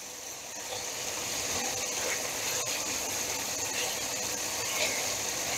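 Chicken breast pieces sizzling steadily in hot oil in a sauté pan.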